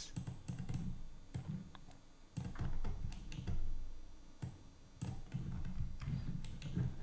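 Computer keyboard keys and mouse buttons clicking irregularly, over a low steady background hum.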